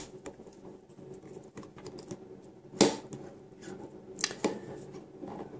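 Handling noise from an Azodin KP3 paintball pump marker: small plastic-and-metal clicks and taps as fingers work at its breech and ball detents, with two sharper clicks about three seconds in and about four and a half seconds in.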